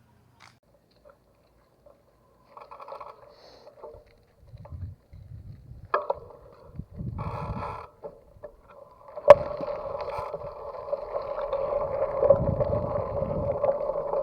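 Mountain bike's Saturn Atlas 2.0 rear hub freewheeling: short bursts of sound at first, then from a sharp click about nine seconds in, a steady ratcheting buzz that grows a little louder as the bike rolls.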